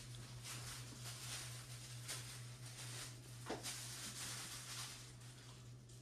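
Soft handling rustle in a quiet room as bedside wall lamps are switched on, with two short clicks about two seconds and three and a half seconds in, over a steady low hum.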